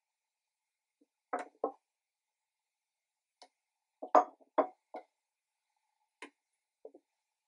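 Kitchen knife and sliced carrots knocking against a wooden cutting board and a glass bowl: about eight separate knocks and clinks with pauses between them, the loudest about four seconds in.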